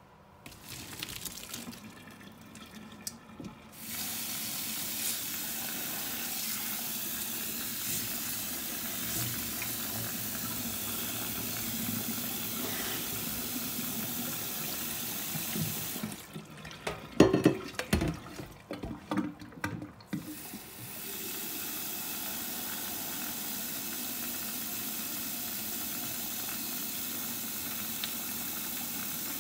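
Kitchen tap running steadily into a plastic colander in a stainless steel sink. About halfway the water stops for a few seconds of loud knocking and clattering as the colander is set into a metal pot, then it runs again. Light clatter comes before the water first starts.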